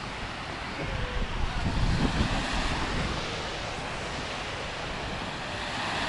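Small waves washing onto a sandy shore, with wind rumbling on the microphone; the wash swells briefly about two seconds in.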